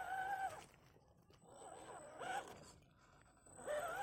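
Whine of a 1:10 RC rock crawler's brushed 540 motor and geartrain in short throttle bursts while crawling over rocks. The pitch wavers up and down with the load, and it goes quieter between bursts.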